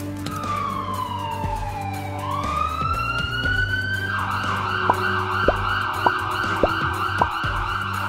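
Electronic ambulance siren: one slow tone gliding down, then back up, then switching about four seconds in to a fast warbling yelp, over steady background music. Five short sharp clicks come through during the warble.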